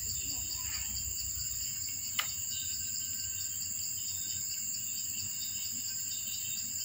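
Steady high-pitched insect chorus with a faint regular pulsing, and one sharp click about two seconds in.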